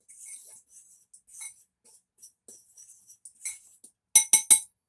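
A fork stirring flour, baking soda and salt in a mixing bowl with soft scraping, then three quick sharp clinks of the fork against the bowl near the end.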